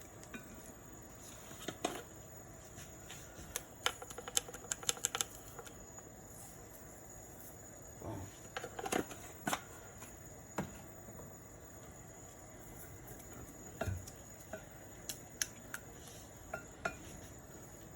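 Scattered light clicks and clinks of kitchen utensils and containers, with a quick run of clicks about four seconds in.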